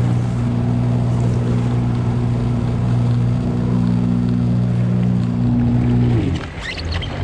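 Jet ski engine running steadily at low speed, then throttled back about six seconds in, its pitch dropping as it settles toward idle.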